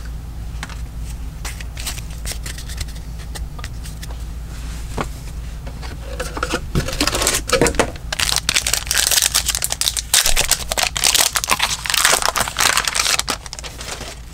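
Light clicks of trading cards being handled, then from about six seconds in a card pack's wrapper being crinkled and torn open, a dense crackling that stops shortly before the end.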